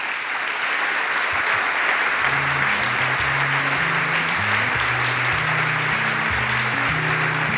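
Audience applauding steadily, with music coming in under the clapping about two seconds in, its bass stepping between low notes.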